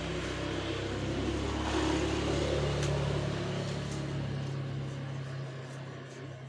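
Engine hum of a passing motor vehicle, swelling over the first few seconds and then fading away. A single sharp click about three seconds in, as a lock of hair is pulled to crack.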